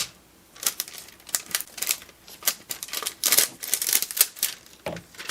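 Irregular clicking and clattering of small hard objects being handled and set down on a work table, with a denser cluster of clicks a little past three seconds and a duller knock near the end.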